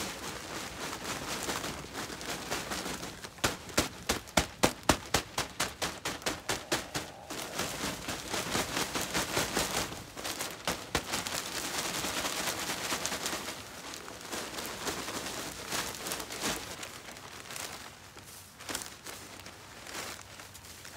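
A plastic-wrapped bale of pine shavings being handled and opened: a fast run of sharp plastic crackles, about three or four a second for several seconds, then a steady rustle of plastic and loose pine shavings being spread, fading toward the end.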